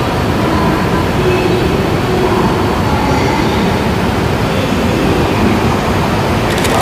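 E3 series Shinkansen running slowly over curved track: a steady rumble of wheels on rail with faint thin squealing tones. Rapid wheel clicks start near the end.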